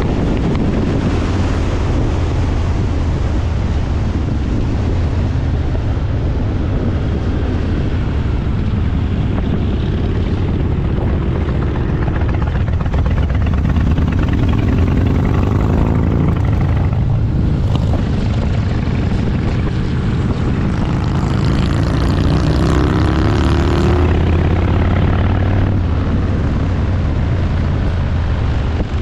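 Motorcycle engine running steadily at riding speed, with wind rushing over the microphone; the engine note rises a couple of times as the throttle opens.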